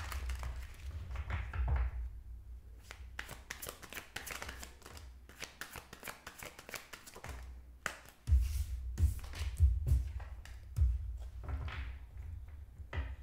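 Tarot cards being shuffled by hand and laid down on a wooden table: a steady run of quick papery clicks and rustles, with soft thuds as the deck and cards are handled. The thuds are heavier about two-thirds of the way through.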